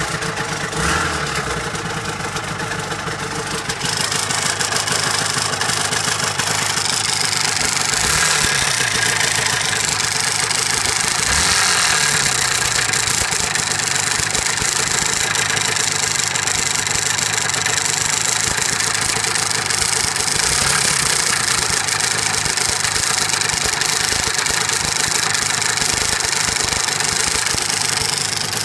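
Yamaha R1-Z two-stroke twin engine running at idle just after a kick start, with a clattering click-clack from the left side of the engine. The noise is the warning sign of an engine about to seize.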